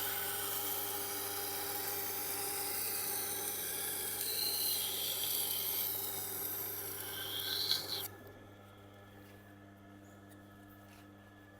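Wüsthof knife blade ground on the Tormek T8's rough SG-250 grindstone: a steady rasping of steel on the slowly turning wet stone, drawing up a burr on this coarse stage. The rasping briefly rises in pitch twice, then stops suddenly about eight seconds in as the blade comes off, leaving the grinder's faint motor hum.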